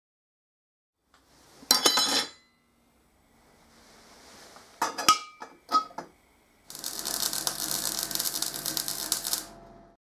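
Steel plate metalwork on a propane-tank lid: a short rasping burst, then a few sharp ringing clinks of steel plate on the steel tank dome, then about three seconds of steady arc-welding crackle with a low electrical hum as the brackets are welded on.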